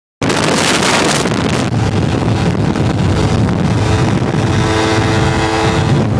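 Motorcycle engine running under way, with wind rushing over the microphone; the rushing is loudest in the first second or so, and the engine's steady tone comes through more clearly in the second half.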